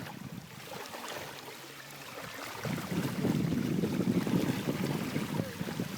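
Wind buffeting the microphone over the sound of the sea, growing louder about halfway through.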